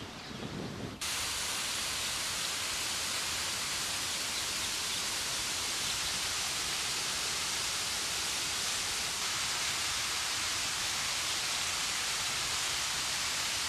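Water rushing and cascading over rocks in a mountain stream, a steady even hiss that starts abruptly about a second in.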